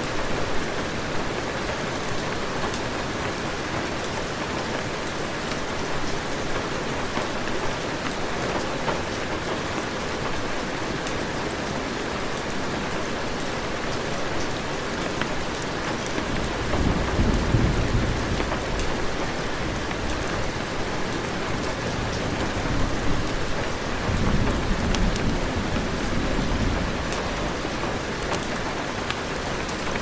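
Steady heavy rain with two low rolls of thunder, the first starting a little past halfway and lasting about three seconds, the second a few seconds later.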